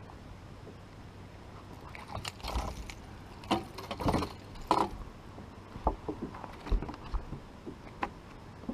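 A small hooked bass splashing at the water's surface as it is reeled in, then a few sharp thumps as it flops on the boat deck and is handled.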